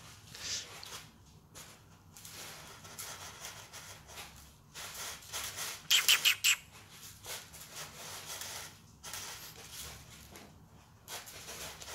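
Cat digging in a basin of granular cat litter, the granules scratching and rustling in irregular bursts, with a louder run of four or five quick scratches about six seconds in.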